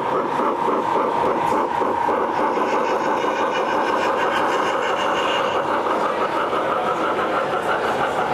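Large-scale model steam locomotive running along the track, with a quick, even chuffing rhythm.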